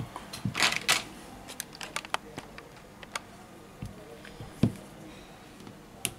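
Irregular light clicks and taps from a smartphone's plastic housing and a small pry tool being handled, with a heavier knock about four and a half seconds in.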